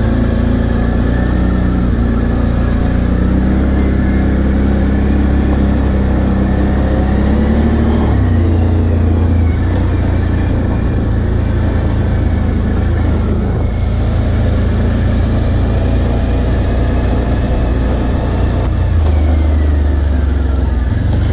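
2018 Can-Am Outlander 650 MAX XT ATV's V-twin engine running steadily while riding. Its pitch shifts up and down with the throttle about a third of the way in and again near the end.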